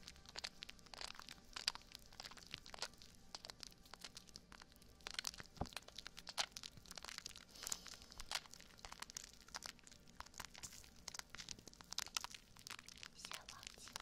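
Soapy foam bubbles popping and crackling as hands squish and rub the foam over the silicone ears of a binaural microphone, close up. A dense, irregular run of tiny pops.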